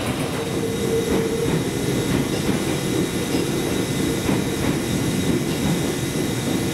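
Underfloor rotary motor-generator (CLG-703) of a stationary Tobu 6050-series electric railcar running with a steady hum. A short higher tone comes about half a second in and lasts about a second.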